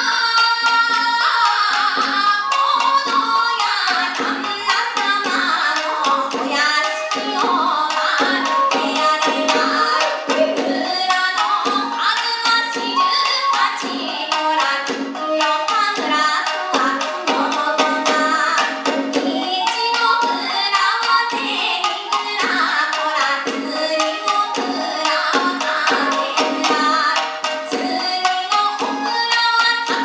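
A woman singing a Japanese folk song (min'yō) to shamisen, shakuhachi and drum accompaniment. Her voice carries the melody over steady plucked and struck strokes throughout.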